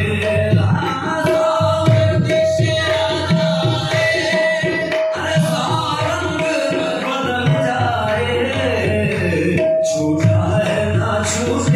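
Devotional Sufi kalam sung with tabla accompaniment, over a long steady held note.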